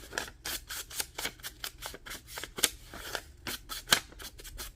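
A quick, irregular run of small sharp clicks and taps, about four to six a second, from paper-crafting work at a table.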